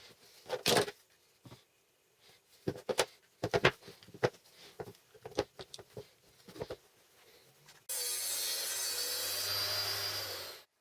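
Scattered knocks and clatter of tools and workpieces being handled, then a power tool runs for about three seconds, working material with a steady, noisy sound over a low hum, and stops abruptly near the end.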